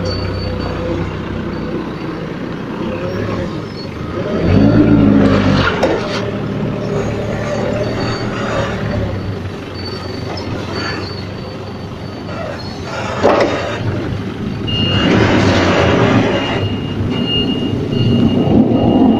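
Mitsubishi Grendia forklift's engine running close by, revving up about four seconds in and again, louder, in the last few seconds as it loads a pallet onto a truck. A thin, steady high whine joins in near the end.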